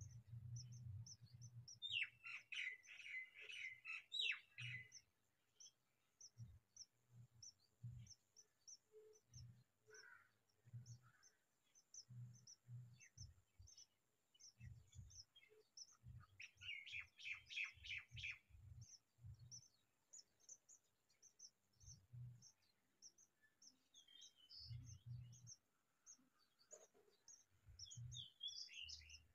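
House sparrows chirping in two bursts of rapid chirps, about two seconds in and again about sixteen seconds in, with a few softer chirps near the end. Faint, evenly spaced high ticks and dull low thumps sound between the bursts.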